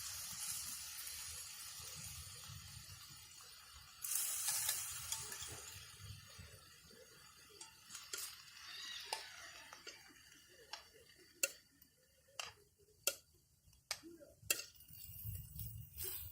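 Food sizzling in a pan, dying down, with a fresh burst of sizzle about four seconds in. In the second half, a string of sharp single clinks, cutlery against cookware.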